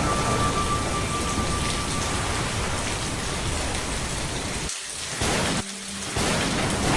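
Steady heavy rain with a low rumble of thunder. The sound drops away briefly twice, about four and a half and five and a half seconds in.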